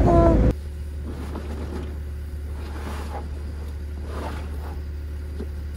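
Music with steady pitched notes, cut off about half a second in. Then a heavy truck's diesel engine idles with a steady low hum, under a few faint rustles of a canvas tarp being handled.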